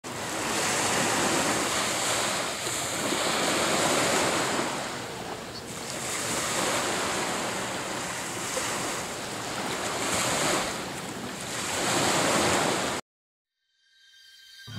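Small Gulf of Mexico waves lapping and washing onto a shell-strewn beach, the surf swelling and ebbing every two to three seconds. The sound cuts off suddenly near the end.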